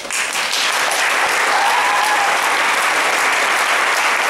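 Audience applauding in a large hall. The clapping swells quickly within the first second, then holds steady and dense.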